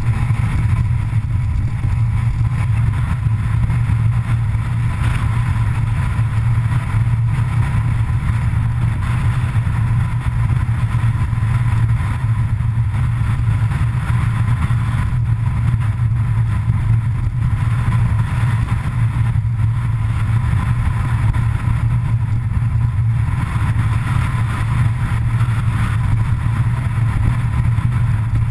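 Vehicle driving steadily along a road, heard from a camera mounted low on its outside: a loud, even low rumble that holds the same pace throughout.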